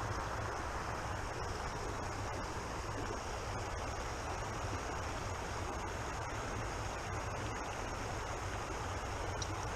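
Creek water running, a steady even rushing noise with a low rumble under it.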